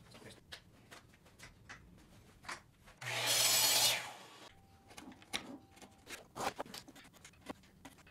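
Chisel paring the ends of thin hard-maple kumiko strips in a guide jig: scattered short scraping cuts and light wooden clicks. About three seconds in comes a loud hissing burst lasting about a second, with a low hum under it.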